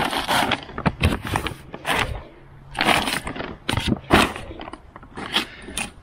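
Paper grocery bags crinkling and scraping as they are lifted and set down on a concrete step, in a run of short, irregular bursts.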